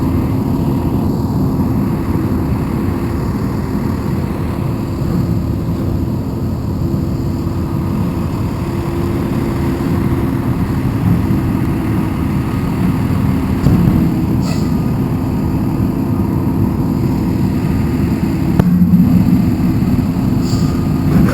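Engine of heavy machinery running steadily: a constant low drone with a steady hum and no change in pace.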